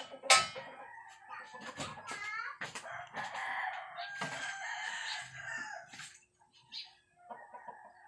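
A rooster crowing, with the longest crow held for about three seconds midway. There is a sharp knock just after the start.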